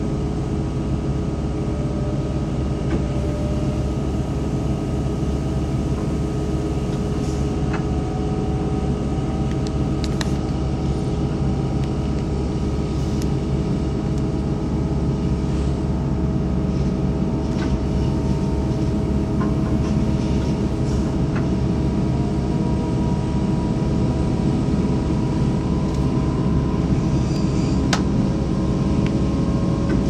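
Steady low drone of a moving vehicle heard from inside, with a few faint clicks and rattles.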